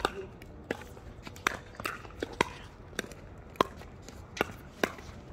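Pickleball rally: sharp pops of paddles hitting the hard plastic ball, about ten in quick succession, roughly half a second to a second apart.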